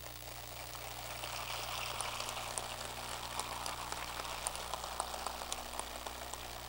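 Audience applauding: many hands clapping, swelling over the first two seconds and thinning out near the end.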